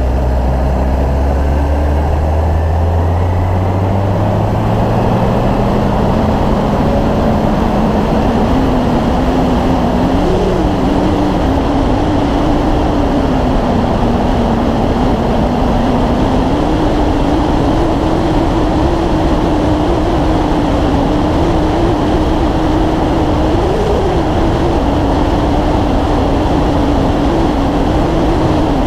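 A motorcycle at road speed, with loud wind rushing over the microphone. The engine note rises over the first few seconds as it accelerates, then holds steady with a slight waver.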